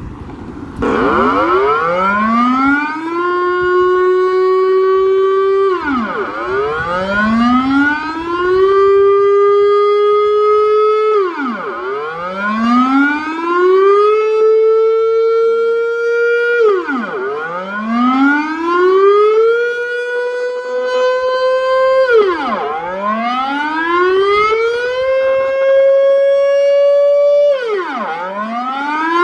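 Dutch civil-defence air raid siren sounding its monthly test, a loud wailing tone that repeats about every five seconds. Each cycle rises over about two seconds, holds, then drops sharply, and the held pitch climbs a little higher with each cycle.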